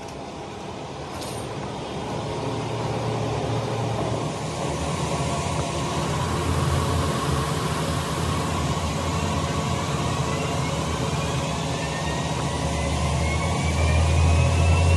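Factory machinery running steadily with a deep hum. From about halfway, a faint whine rises slowly in pitch, and the noise grows louder near the end.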